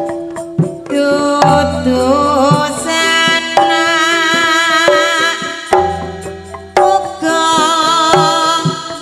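Live campursari music: Javanese kendang hand drums beating a lively pattern under long, slightly wavering melody notes and a deep bass line.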